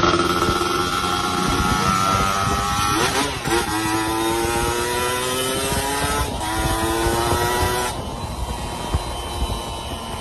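Two-stroke motorcycle engine accelerating hard: its note climbs steadily in each gear, with two upshifts about three and six seconds in, then the throttle closes about eight seconds in.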